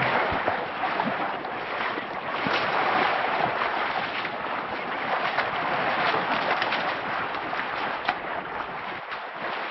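Water splashing and sloshing as a herd of African elephants wades through a shallow river: a continuous wash with many small, sharp splashes.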